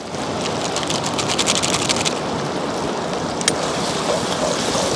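Curry simmering and sizzling in an iron kadai over a wood fire, a steady hiss. Fast ticking rustle in the first two seconds as spice powder is shaken from a packet into the pan. A single metal clink of the ladle against the pan about three and a half seconds in.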